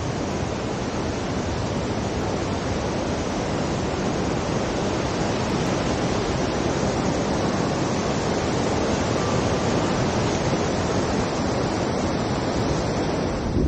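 Steady rushing of fast-flowing water, a loud even roar that builds slowly in level.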